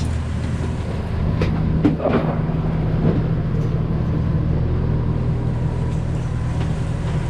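Sailboat's engine running steadily under way, a low drone, with a few light knocks about two seconds in.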